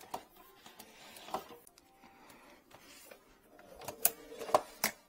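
Handling noise from a drain inspection camera's yellow push cable being drawn back and tools being handled: scattered light clicks and rattles, with a few sharper clicks about four seconds in.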